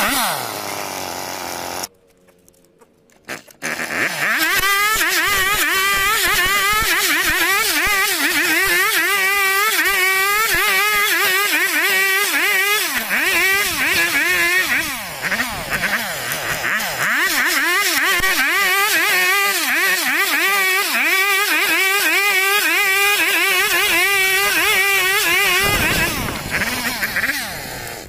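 Chainsaw cutting lengthwise through a log to rip it into planks, its engine pitch wavering rapidly up and down under load. It drops out briefly about two seconds in, comes back, and dies away near the end.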